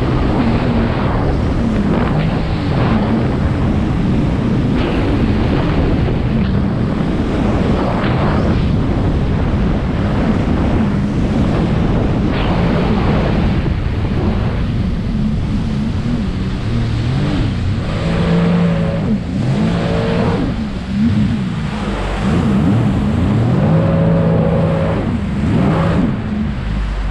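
Steady, loud rumble of a moving vehicle's engine with wind noise on the microphone.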